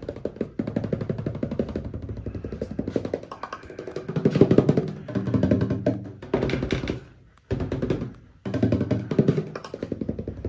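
Hand drumming rapidly on the riveted aluminium fuselage skin of a Sling TSi kit aircraft, in runs of quick strikes with a couple of short breaks. It is an insulation test: the skin sounds different where insulation has been stuck to its inside than where it is still bare.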